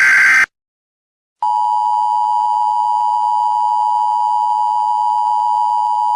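Emergency Alert System broadcast tones. A harsh, buzzy digital data burst (the SAME header) cuts off about half a second in. After a second of silence, the EAS attention signal starts: a loud two-tone alarm held steady without a break.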